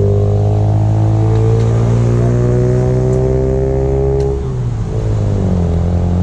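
A car engine held at high, steady revs. It drops off briefly about four and a half seconds in, then climbs back up.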